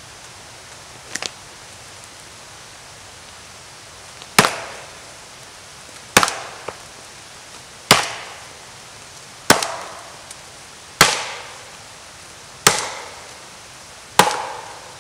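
Old West German felling axe, freshly re-hafted on a wooden handle, chopping into a standing tree trunk. A light double tap comes about a second in, then seven hard strikes about one and a half seconds apart, each with a short ring-out, over a steady hiss.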